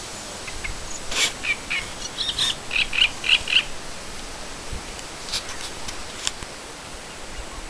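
A bird chirping: a quick series of short high notes in the first half, over a steady outdoor hiss, with a few sharp rustles or clicks.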